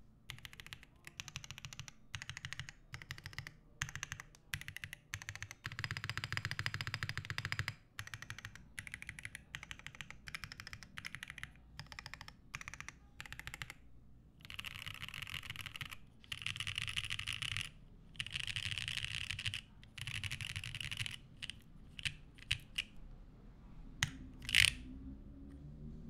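Typing on a Geonworks Frog Mini mechanical keyboard with lubed WS Onion switches, an FR4 half plate and GMK keycaps: a steady run of key clacks, with long stretches of very fast continuous key presses in the middle and a few sharper single strokes near the end.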